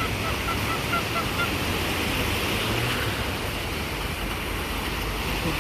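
Ocean surf washing onto a beach with wind on the microphone, a steady rushing noise. In the first second and a half a quick run of short, high, bird-like calls, about four a second, fades out.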